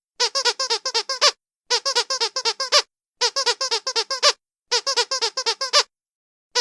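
A squeaky sound effect looped over and over: four identical runs of about nine quick, high-pitched squeaks each, with short dead-silent gaps between the runs.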